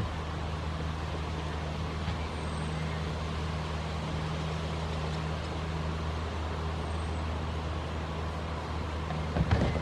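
Steady low hum of a running motor, with a constant hiss over it; a short cluster of knocks near the end.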